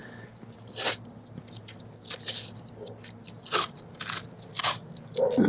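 Blue masking tape crinkling and crackling in a handful of short rustles as it is handled and pressed down onto the rubber roof membrane around the drain.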